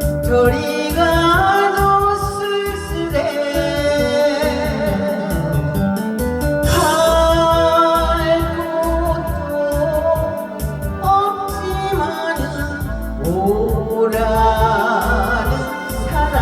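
Korean trot song playing: a steady beat under a held, sliding lead melody line.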